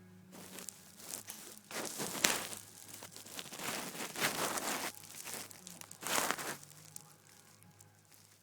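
A dog snoring: a run of noisy, puffing 'puu puu' breaths, roughly one every one to two seconds.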